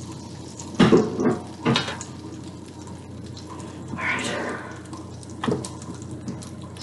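Kitchen clatter: several sharp knocks of pans or utensils, a cluster about a second in and another a little before the end, over a steady hiss, with a brief swelling rush around four seconds.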